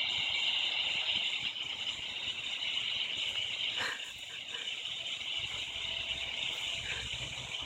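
Cicadas droning in a continuous high buzz. There is a short knock about four seconds in, and a low rumble comes in over the last two seconds.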